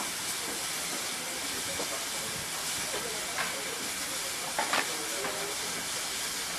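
Steady hiss of steam from a standing GWR 5600 class 0-6-2T tank locomotive, No. 5619, with a few faint knocks around the middle.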